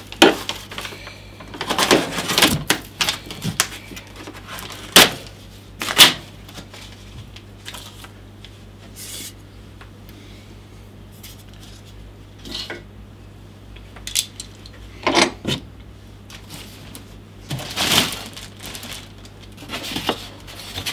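Cardboard box and its packaging being cut and handled: scattered knocks, taps and scrapes at irregular intervals, a few of them sharp.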